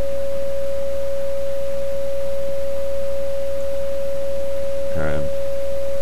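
Steady single beat tone, a little above 500 Hz, from a ham radio receiver's speaker: the unmodulated 20-meter carrier of a signal generator, tuned slightly off zero beat so it is heard as a constant whistle.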